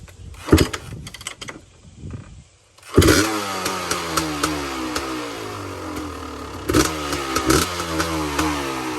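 Kawasaki KX500's two-stroke single-cylinder engine cold-starting: a clatter of kicks, then it catches about three seconds in and runs with a wavering pitch as the throttle is worked, with two sharp blips a little past the middle.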